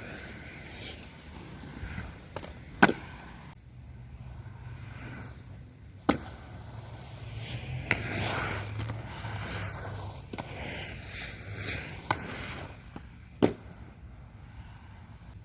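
Aggressive inline skates rolling over pavement, with five sharp clacks of the skates and grind blocks landing and striking.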